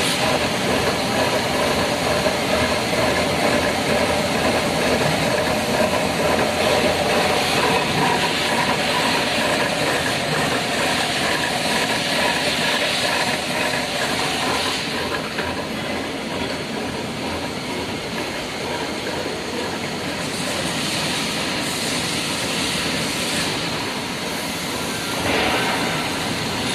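Heavy metalworking machinery running in a workshop: a steady mechanical din with a hiss and faint whining tones that shifts to a thinner sound about halfway through.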